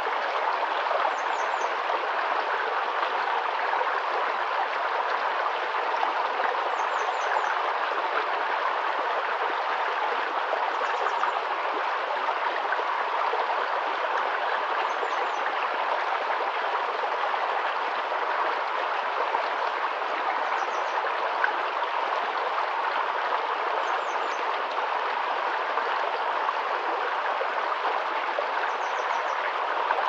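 Shallow rocky stream flowing steadily over stones, an even rushing and burbling of water. Faint, brief high chirps come every few seconds.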